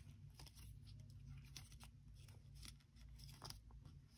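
Faint crinkling of 80 gsm paper being opened and creased between the fingers during origami folding: a scatter of small soft clicks over a low steady hum.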